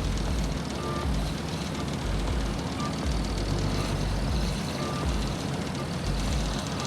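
Heavy diesel road-paving machinery running with a low, steady rumble, while a reversing alarm gives short beeps about every two seconds, three times.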